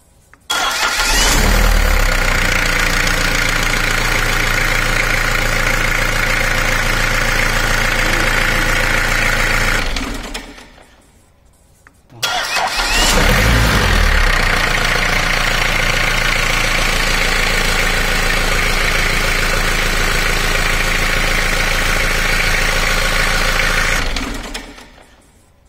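Bare engine on a stand started by its starter motor, catching almost at once and running steadily for about ten seconds, then shut off and winding down to silence. After a short pause, a click and it is started again with a brief surge, runs steadily, and winds down once more near the end.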